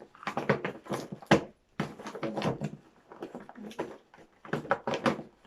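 Cardboard phone boxes and packaging being handled: a quick string of rustles, scrapes and knocks, with one sharper knock about a second in.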